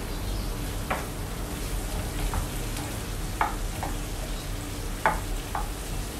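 Pork liver sizzling steadily in a frying pan in the liquid it has released, stirred with a spatula that scrapes and taps against the pan a few times, the loudest strike about five seconds in.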